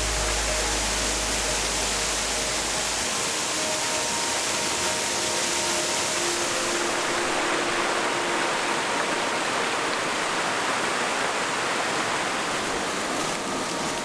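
Steady rush of a mountain stream's water flowing and cascading over rock, with faint held tones over it.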